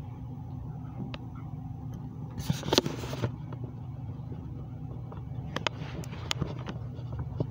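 Handling noise from a photo print being held and moved close to a phone microphone: a brief scraping rustle about two and a half seconds in, then a few light clicks and taps around six seconds, over a steady low hum.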